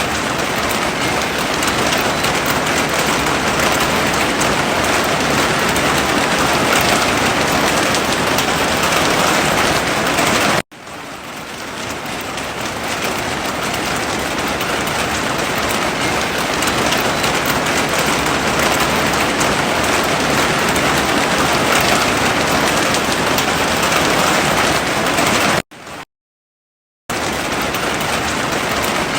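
Heavy rain falling steadily, a loud dense hiss of drops. It cuts out abruptly about a third of the way in and swells back over a couple of seconds, then drops out for about a second near the end.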